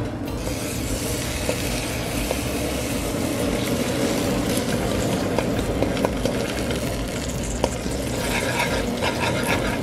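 Brown sugar sizzling in hot oil in a metal pot as a metal ladle stirs it, with a few light ladle ticks against the pot. This is the sugar melting and browning before the meat goes in.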